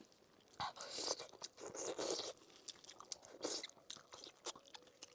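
Close-miked eating sounds: a person biting into and chewing pork knuckle, in separate bursts about a second apart, with small clicks between them.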